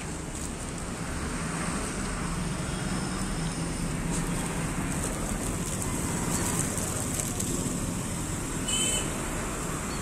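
Steady street background noise of road traffic, with a brief high-pitched squeak near the end.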